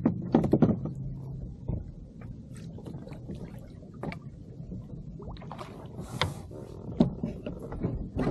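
Water sloshing against a kayak hull with a low steady rumble of wind and sea, broken by sharp clicks and knocks in the first second and again about seven seconds in, and a brief hiss about six seconds in.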